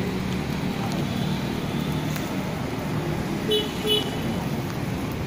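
Steady street traffic rumble with an engine humming close by, and two short horn beeps in quick succession about three and a half seconds in.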